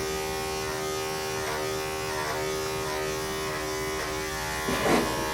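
Electric dog-grooming clippers running with a steady buzzing hum. There is a brief, noisier sound near the end.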